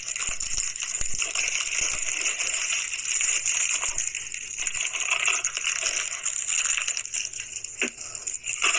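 Steady hissing noise, with a couple of faint knocks near the end.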